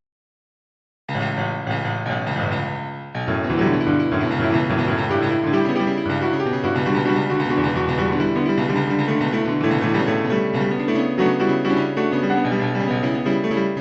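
About a second of dead silence, then instrumental music led by piano begins. It fills out and gets louder about two seconds later.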